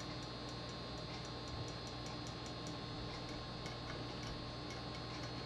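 Quiet room with a low, steady hum and a quick, even run of faint ticks.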